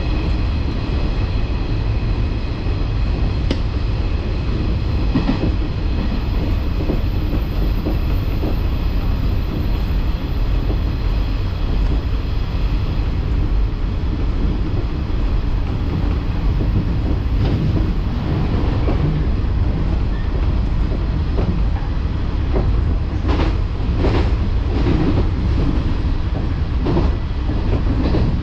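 JNR 113 series electric multiple unit running at speed, heard from inside the cab end: a steady low rumble of wheels and running gear. The wheels click sharply over rail joints several times, most of them near the end.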